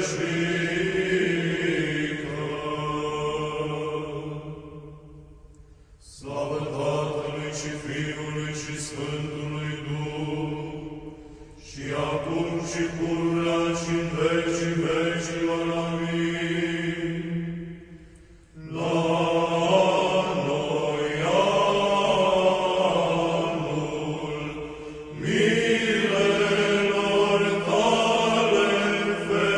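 Orthodox church chant: male voices singing a slow melodic line over a steady held low drone, in long phrases broken by short pauses about every six seconds.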